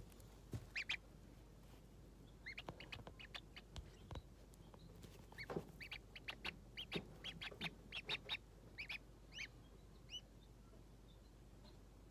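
Ducklings peeping: short high peeps in quick runs, thinning out near the end, with a few soft knocks among them.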